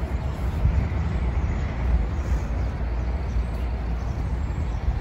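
Steady outdoor traffic noise: a low rumble with an even hiss and no distinct events.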